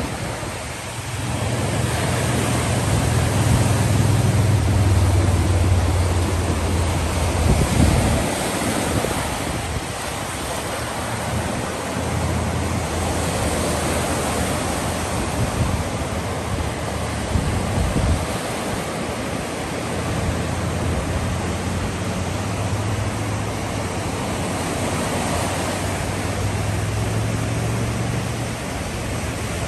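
Waves breaking and washing up on a pebbly lakeshore: a steady rush of surf, with wind rumbling on the microphone that swells and fades.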